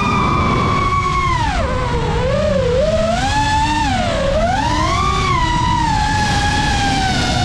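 FPV drone's motors whining, the pitch dropping sharply just after a second in as the throttle comes off, wavering, climbing again about five seconds in and easing down near the end, over a low rumble.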